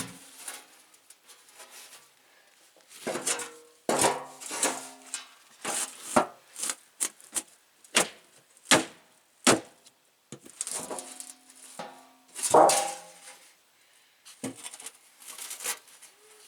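Sledgehammer blows on a truck's sheet-metal fender, a dozen or more irregularly spaced heavy strikes, many followed by a brief metallic ring, as a dent is beaten out.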